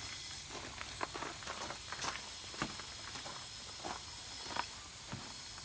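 Steady hiss with scattered light clicks and taps.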